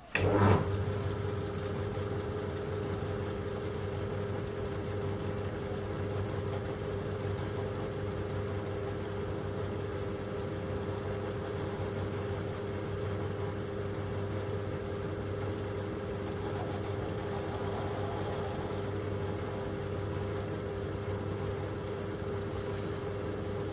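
Schaublin lathe starting up and then running at a steady hum as its tool cuts a short bolt down to length in a collet.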